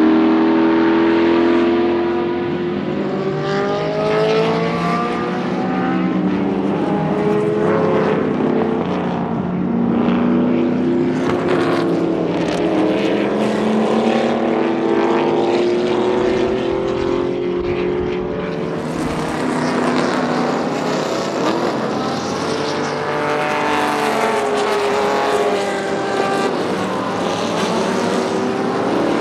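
Lola T70 Mk3 coupé's Chevrolet V8 race engine accelerating through the gears and downshifting, its pitch repeatedly rising and dropping as the car passes on track.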